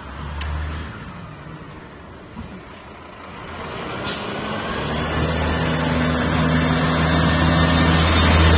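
Scania fire engine's diesel engine pulling away and accelerating toward and past, getting louder and loudest near the end, with a short hiss about four seconds in.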